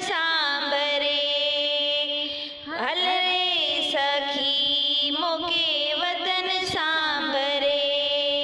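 Kutchi folk song: a woman's voice holding long, gliding melody notes over a steady drone, with a brief break about two and a half seconds in.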